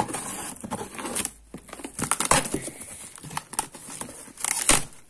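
Packaging wrap crinkling and tearing as it is handled, in irregular rustles with loud bursts at the start and near the end.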